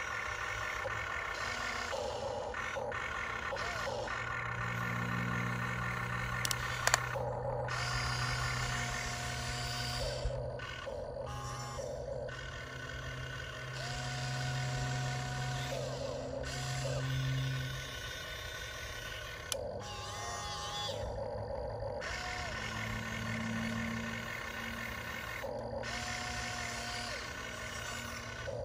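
Huina 1592 RC excavator digging: its small electric gear motors whine, starting, stopping and shifting in pitch as the boom, arm and bucket move, over stretches of a lower engine-like drone. A couple of sharp clicks about seven seconds in.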